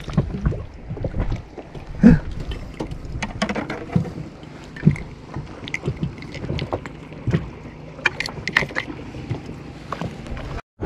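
Irregular knocks and clicks aboard a small inflatable boat over a low rumble of water and wind, the loudest knock about two seconds in.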